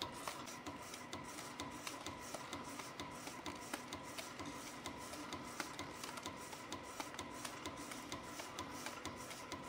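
CNC spring coiling machine running at production speed, feeding 0.6 mm wire and coiling compression springs at about two a second, with a quick, even ticking from its tooling over a steady mechanical hum.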